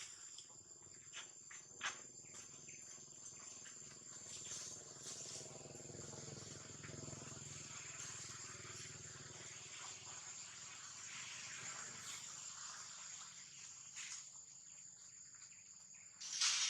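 Insects keep up a steady high-pitched drone over outdoor forest ambience, with a few faint clicks and a short, louder rustle-like burst near the end.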